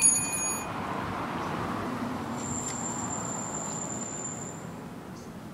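A car driving past on the road, its noise swelling over the first couple of seconds and fading away toward the end. It opens with a brief loud click and a short beep-like tone, and a thin high steady tone sounds for a couple of seconds in the middle.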